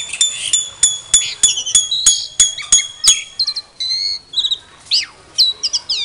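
Caged starlings calling: a fast, even run of sharp clicks, about three a second, mixed with high whistled notes. After about three seconds it gives way to scattered chirps and a few falling whistles.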